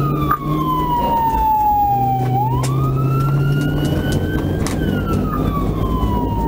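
Police car siren wailing, its pitch sliding slowly down, then back up about two seconds in, and down again, over steady engine and road noise from the pursuing patrol car.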